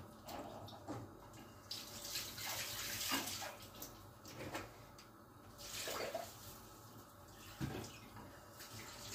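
Hot water in a steel pot of dried eggplant, zucchini and pepper shells, making a running, bubbling water sound that swells and fades several times.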